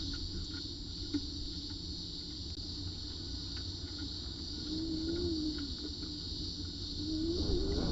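Cicadas droning in a steady, high-pitched chorus over a low rumble, with a low wavering hum coming in briefly midway and again near the end.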